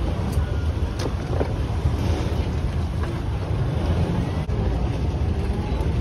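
Boat engine running steadily under way, a low drone with wind noise on the microphone.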